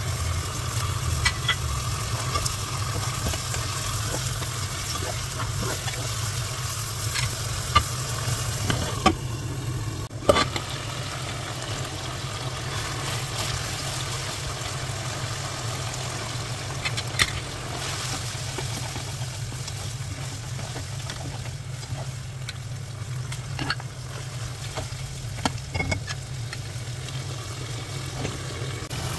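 Mutton pieces frying in hot oil in a pan, a steady sizzle over a low hum. Occasional sharp clicks and scrapes come from a plastic slotted spatula knocking against the pan as the meat is stirred.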